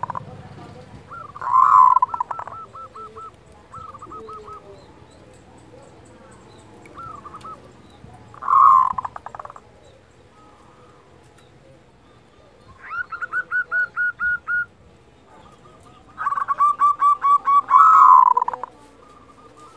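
Zebra dove (perkutut) giving its kerot call: loud rolling coos about 2 s in, about 9 s in and near the end, followed by fast staccato runs of notes. In the second half come two long trains of rapid clipped notes.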